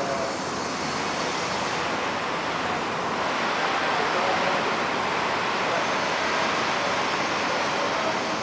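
Steady rushing noise of electric fans and portable air coolers running in a large hall, getting a little louder about three seconds in.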